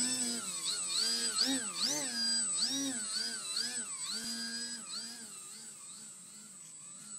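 Electric motor and propeller of a Telink SU-29 RC plane, its pitch swinging up and down about twice a second as the throttle is worked, growing fainter as the plane flies away.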